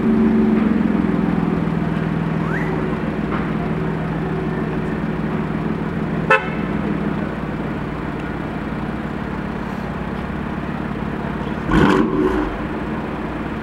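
BMW M4's twin-turbo inline-six idling steadily, its level easing down over the first several seconds. A sharp click comes about six seconds in, and a short, louder burst of sound comes near the end.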